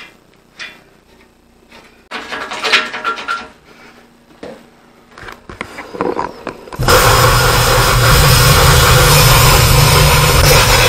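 A few knocks and a clatter of steel being handled, then about seven seconds in an angle grinder with a cutoff wheel starts cutting through rusty 1/8-inch steel C-channel with a loud, steady cutting noise.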